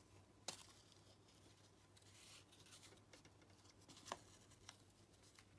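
Near silence with the faint sounds of hand-stitching paper: light rustling of paper and thread, and two small sharp clicks, about half a second and about four seconds in, as a needle is pushed through the paper.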